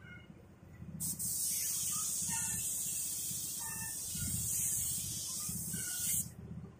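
Compressed-air spray gun triggered and held open in one steady hiss for about five seconds, starting about a second in and cutting off abruptly, as a coat of clear is sprayed.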